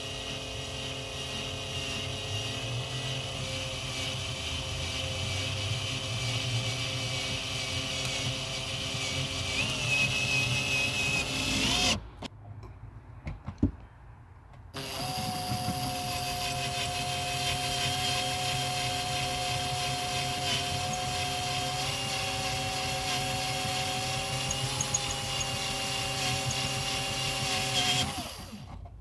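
Electric drill motor running steadily in two long runs, with a pause and a click about twelve seconds in. Its pitch sags slightly just before the first stop.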